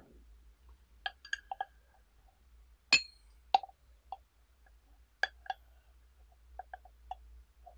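Bamboo tea stick knocking and scraping against a glass pitcher while raking out wet steeped tea leaves: a string of sharp clinks. The loudest two come about three seconds in, one of them with a brief glassy ring.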